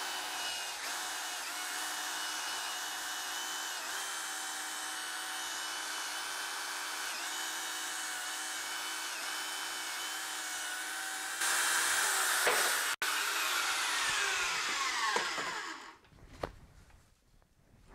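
Harbor Freight portable bandsaw's electric motor running steadily as it cuts through aluminum bar stock, its whine dipping briefly under load every second or so. About eleven seconds in it gets louder. It is then switched off and winds down with a falling whine, followed by a few light knocks near the end.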